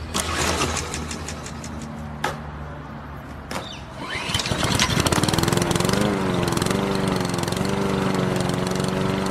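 Lawn mower engine being pull-started: a few sharp pulls of the starter cord, then about four seconds in the engine catches and runs steadily, its pitch wavering a little.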